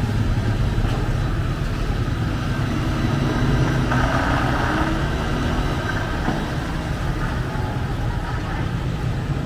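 Steady low rumble of an idling motor vehicle and street traffic.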